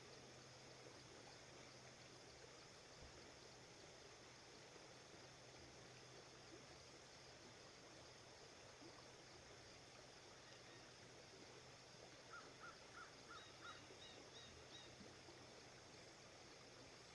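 Faint steady flow of a river, with a bird calling a quick series of about five short notes about twelve seconds in.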